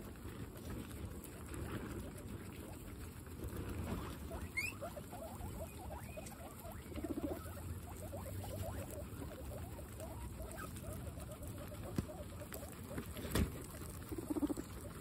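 Several guinea pigs munching fresh grass close up: a steady run of quick, crunching chews and rustling blades. A short high rising chirp comes about four and a half seconds in, and a sharp click near the end.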